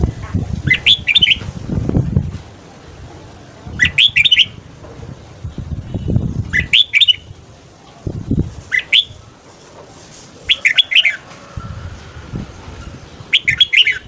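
Red-whiskered bulbul singing short, bright warbled phrases, six of them a couple of seconds apart, as a caged bird's morning song. Low thumps and rumbles sound between the phrases.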